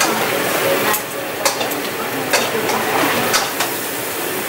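King crab legs sizzling as they fry in a skillet, with a steady hiss. A metal spoon clinks against the pan and shells about six times as the pieces are turned.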